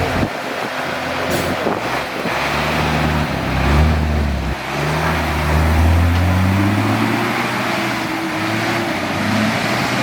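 An off-road 4x4's engine revving under load, its pitch climbing, dropping briefly about halfway, then climbing steadily again.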